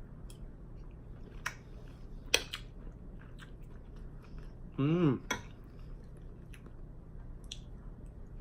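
Eating sounds: utensils clicking and clinking against a dish several times, with the sharpest click about two and a half seconds in, and quiet chewing. About five seconds in comes a short hummed sound that rises and falls in pitch.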